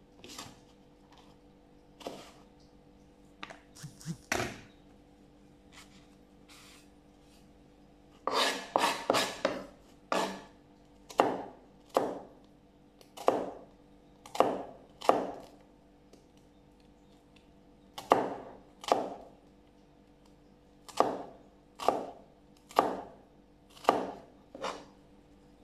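Kitchen knife cutting onion and tapping down on a cutting board. The cuts come in separate strokes, with a quick run of several about eight seconds in, then about one a second.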